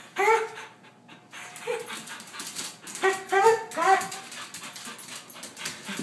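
A dog giving short, high whining cries: one at the start, one a little later, then three in quick succession in the middle.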